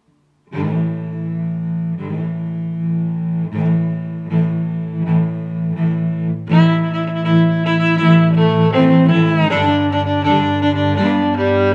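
Background music of bowed strings: long, sustained low notes that change every second or so, growing fuller as higher string parts join a little past halfway.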